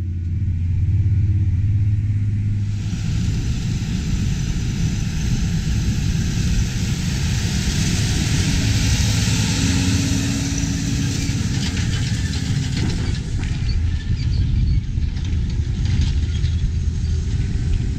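Versatile 335 tractor's diesel engine running steadily under load while pulling a chisel plow, heard from inside the cab for the first few seconds, then from the field as the tractor drives close past.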